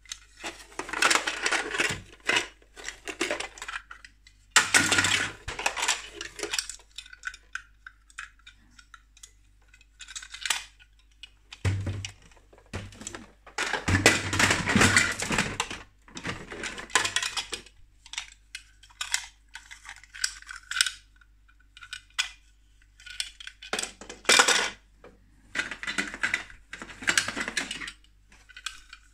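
Hard plastic Playmobil toy pieces clattering and knocking together as hands rummage through a plastic storage bin, in irregular bursts of a second or two with short pauses between.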